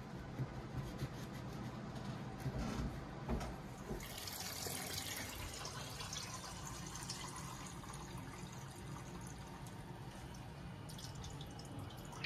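Water draining out of a Weil-McLain hot-water boiler system: a few knocks of handling at first, then a steady hiss of running water from about four seconds in.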